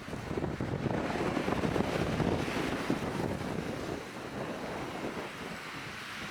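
Wind buffeting the microphone in gusts, loudest in the first few seconds and easing after about four seconds.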